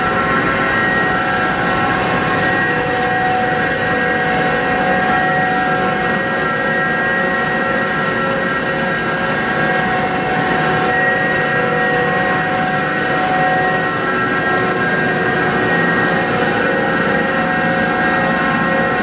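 Red chilli pulveriser plant running at steady speed: a loud, even machine noise with several constant whining tones over it.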